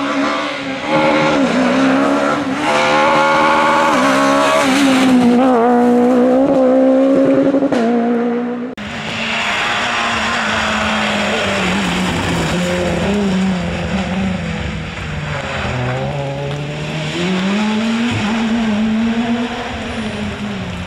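Super 1600 rally cars' 1.6-litre four-cylinder engines at full throttle on a stage, the revs climbing and dropping quickly through gear changes. About nine seconds in the sound cuts to a Peugeot 206 S1600, its engine note sinking and then rising again as it accelerates past.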